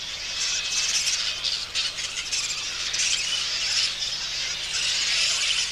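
Flying fox colony at its roost: a steady, dense chorus of high-pitched squawking and chattering calls.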